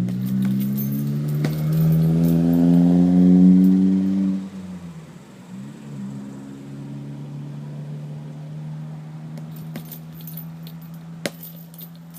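A motor or engine running with its pitch rising for about four and a half seconds, then dropping away to a quieter, steady hum; a few sharp clicks near the end.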